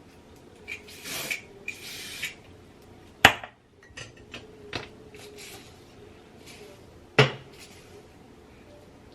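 Small hard objects being handled on a tabletop: a few brief scraping sounds, then two sharp knocks about three and seven seconds in.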